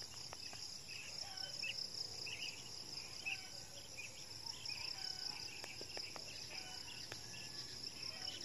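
Steady, high-pitched chorus of insects chirring, with faint scattered chirps over it.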